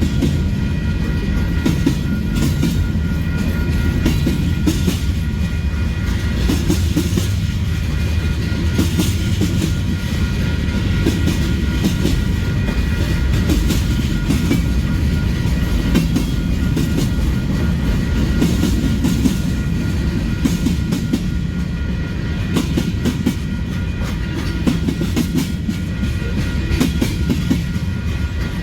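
Long Union Pacific freight train rolling steadily past: a continuous low rumble of the cars with many sharp clicks of wheels crossing rail joints.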